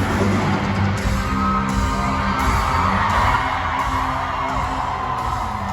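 Live rock band playing the outro of a song at loud concert volume through a PA, with steady sustained bass notes underneath and crowd voices mixed in.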